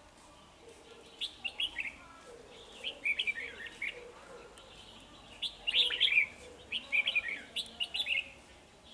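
Red-whiskered bulbul singing in four short bursts of quick, warbled phrases, with brief pauses between them.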